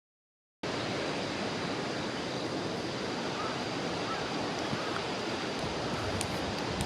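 Steady rushing outdoor ambience, an even noise without tones, that cuts in abruptly just after the start, with a few faint ticks near the end.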